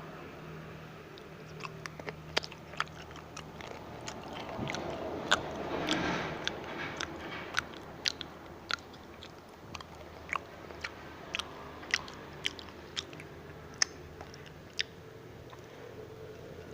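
Crispy fried sweet potato being bitten and chewed: a run of sharp, irregular crunches, with a denser stretch of crunching noise about five seconds in.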